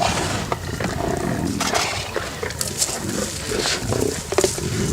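Lions growling, a low rough rumbling that comes and goes irregularly.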